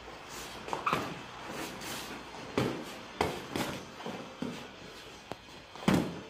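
Sparring strikes smacking into boxing gloves and guard, a handful of sharp hits with the loudest near the end, over shoes shuffling on a wooden floor.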